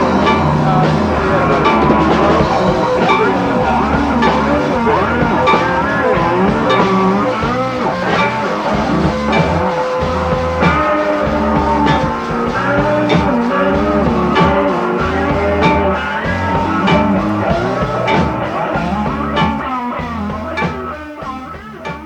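Psychedelic rock music with guitar, drums and a steady low pulse; the guitar lines bend and waver in pitch. The music fades toward the end.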